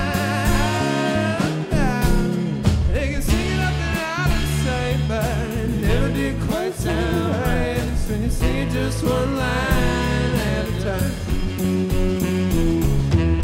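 A funk jam band playing live: a tenor saxophone line with wavering vibrato over electric guitar, bass and a drum kit keeping a steady beat.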